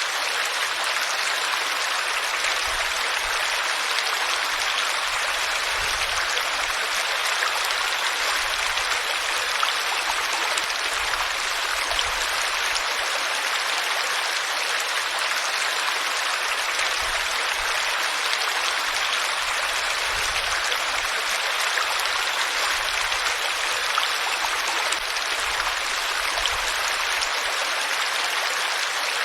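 Flowing water making a steady, even rush with no break or change.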